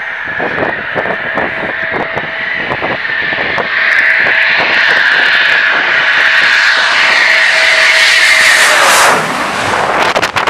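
Eurofighter Typhoon's twin EJ200 turbofans whining on landing approach, swelling louder about four seconds in as the jet closes head-on, with wind buffeting the microphone. The jet sound cuts off suddenly near the end, leaving wind noise.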